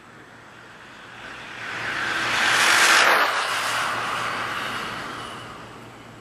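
An RC car with a Traxxas Velineon brushless motor speeds past on a speed run of over 70 mph. Its whine and tyre noise swell from about a second in, peak sharply about three seconds in, then fade away.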